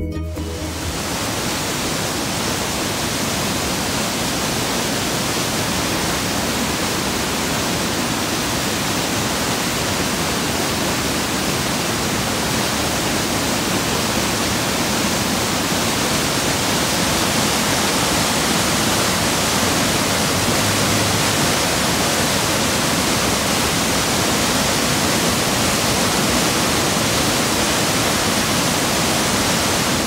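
Ryuzu Falls, a cascade of white water tumbling over rock, rushing in a steady, even wash of noise.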